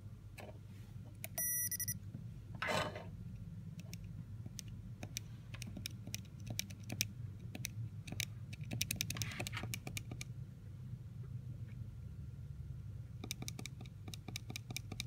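A short electronic beep, then runs of small sharp clicks as the push-buttons on a microcontroller evaluation board are pressed to step the PWM duty cycle up. The clicks come in clusters from about four to ten seconds in and again near the end, over a steady low hum.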